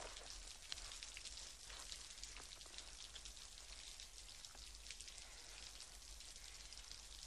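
Faint, steady patter like light rain: dense small ticks over a soft hiss, with a low hum underneath.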